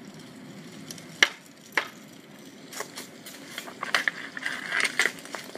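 Sharp knocks of street-hockey play, a hockey stick striking a ball on hard ground: two single hits a second or so apart, then a quicker run of clicks and taps in the second half.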